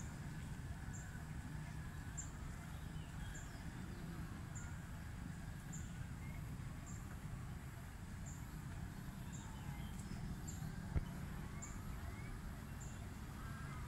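Park birds calling: scattered chirps, and one high, thin note repeated about once a second, over a low, steady outdoor rumble. A single short knock comes about eleven seconds in.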